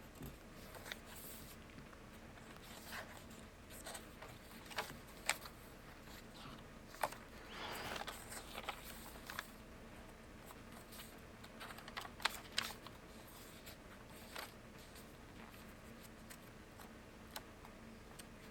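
Faint paper rustling with scattered light clicks and taps as the pages of a handmade paper journal are turned and handled. There is a longer rustle about eight seconds in.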